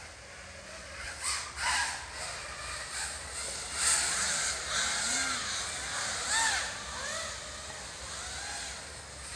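FPV racing quadcopters flying the course, their motors whining in many short rising-and-falling swells of pitch over a steady rushing hiss. The loudest passes come about four and six seconds in.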